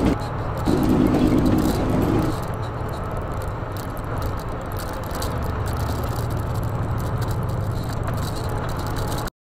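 Semi truck cab on the move: a steady low engine and road rumble with some rattling. A short steady pitched tone sounds for about a second and a half near the start. The sound cuts off suddenly near the end.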